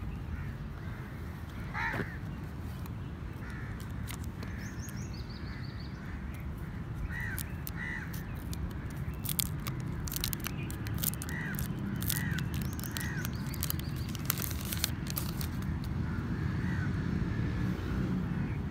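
Crows cawing in short calls, often two at a time, over a steady low rumble of background noise, with a run of sharp clicks and taps in the middle.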